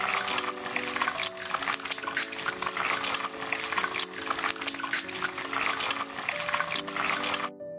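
Eggs frying in plenty of hot oil in a cast-iron skillet: a loud crackling sizzle with many sharp spatters. Background music plays underneath, and the sizzle cuts off suddenly near the end, leaving only the music.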